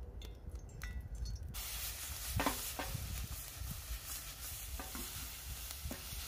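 Chopped green peppers sizzling in hot oil in a wok on a wood-burning stove, with a wooden spatula stirring and scraping the pan several times. The sizzling starts abruptly about a second and a half in; before that there are only a few light clicks and knocks.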